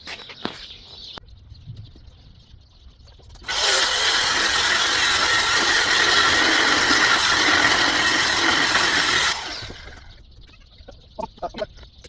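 Reciprocating saw (Sawzall) cutting through metal, running steadily for about six seconds. It starts about three and a half seconds in and stops a little before the end, with a few light knocks before and after.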